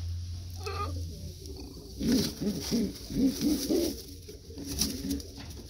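Domestic pigeons cooing in the loft, a run of low coos starting about two seconds in, with rustling of nest-box straw as a hand reaches in.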